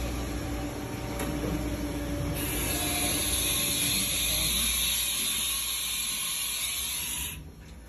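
Haas VF-0 CNC vertical mill running, a steady low mechanical hum. A high hiss starts about two seconds in and cuts off suddenly near the end.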